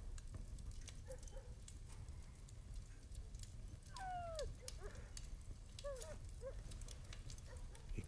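Faint room tone with a low rumble and a few soft clicks. About four seconds in, a distant animal gives one falling call, and a few short chirps follow about two seconds later.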